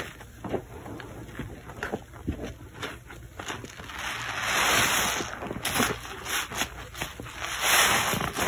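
Soaked yellow soap being squeezed and worked by rubber-gloved hands in a basin of foamy water: wet squelching and sloshing, with two louder swells of hissing lather about halfway through and near the end.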